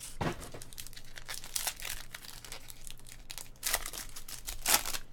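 A trading-card pack's wrapper crinkling and tearing as it is opened by hand, in irregular crackles with a louder burst of crinkling near the end.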